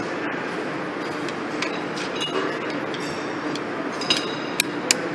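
Light metallic clicks and clinks as a flathead screwdriver walks a steel snap ring around into its groove on a truck transmission input shaft, with a few sharper ringing clinks near the end, over a steady background noise.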